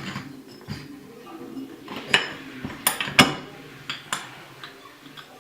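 Metal parts of a K03 turbocharger clinking and tapping against each other as the freshly fitted shaft is handled and turned by hand, with a few sharp ringing clinks. The shaft turns very tightly in its new bearing.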